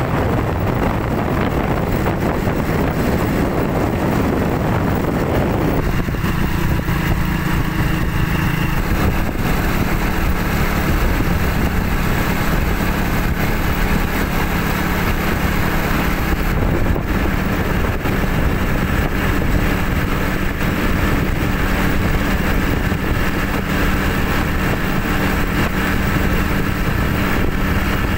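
Motorcycle engine running steadily at cruising speed, its hum settling into an even note about six seconds in, with wind rushing over the microphone.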